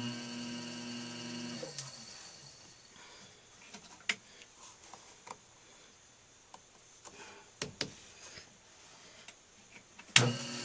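Electric potter's wheel motor whirring as the wheel starts, then dying away after about a second and a half. A few scattered knocks and clicks follow as the cup is tapped and repositioned on the wheel head for centering. Near the end the wheel motor starts up again with a sharp jump in sound.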